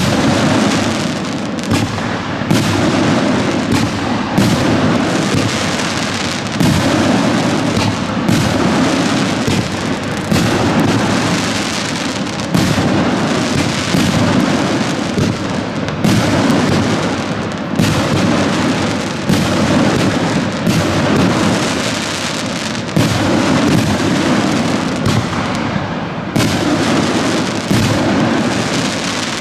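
65 mm fireworks shell cake firing in quick succession: repeated sharp launch thumps and shell bursts, about one every second or two, over a dense, unbroken crackling from the chrysanthemum shells' crackling stars.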